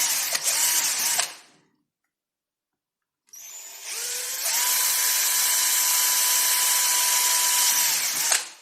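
Power drill with a small pilot bit boring a hole, in two runs. The first stops about a second in; the second spins up about three seconds in, holds a steady whine for about four seconds, then stops.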